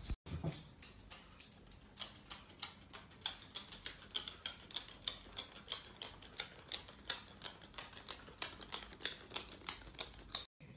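A steady run of light, sharp clicks, about three to four a second, some louder than others, stopping just before the end.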